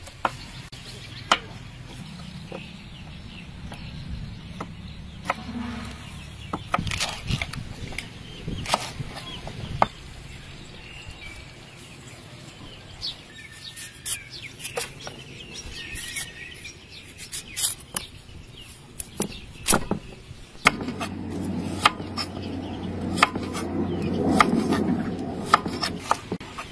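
Kitchen knife chopping and slicing Chinese kale leaves and stems on a wooden cutting board: irregular sharp knocks of the blade hitting the board. Birds chirp faintly in the background, and a low rumbling noise swells over the last few seconds.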